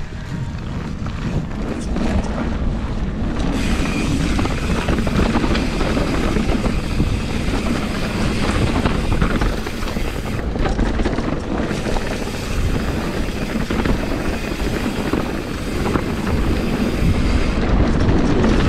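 Steady low rumble of wind buffeting an action camera's microphone while a mountain bike is ridden along a trail, swelling over the first couple of seconds and then holding.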